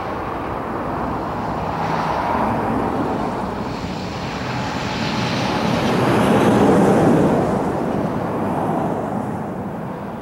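Airbus A320's twin jet engines rumbling during the landing rollout on a wet runway: a broad roar that swells to its loudest about two-thirds of the way through and then eases off.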